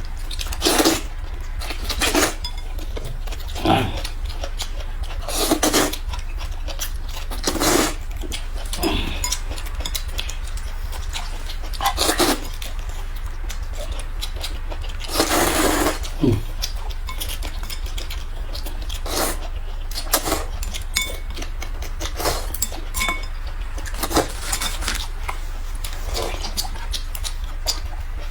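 Eating sounds close to the microphone: short slurps and bites every second or two, one longer slurp about halfway through, and utensils knocking against dishes, over a steady low hum.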